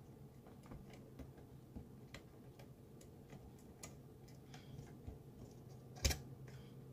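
Small plastic clicks and taps as a white wire-harness connector is pressed onto its header on the circuit board of an open digital TV converter box, with one sharper click about six seconds in as it seats. A faint steady low hum runs underneath.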